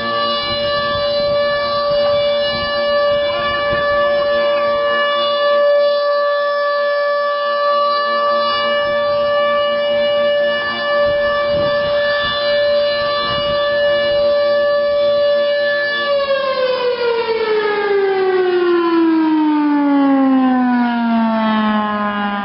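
Federal Signal Thunderbolt 1000 tornado siren sounding its alert tone: a loud, steady pitched wail that, after about sixteen seconds, begins winding down, its pitch falling smoothly as the rotor slows.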